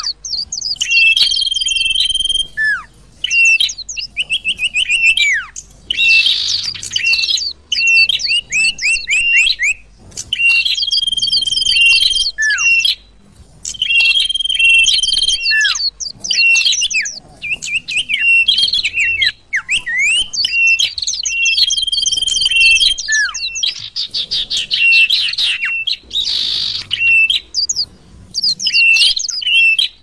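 Mixed lure recording of small songbirds (prinia, white-eye and sunbird calls) played for bird trapping: a held high whistle, rapid chirp series and short falling notes follow one another without pause, the same sequence coming round again every several seconds like a loop.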